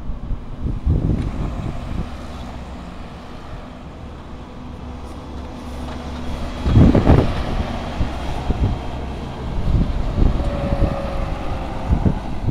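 Wind buffeting the microphone in gusts over a low, steady rumble, with the strongest gust about seven seconds in.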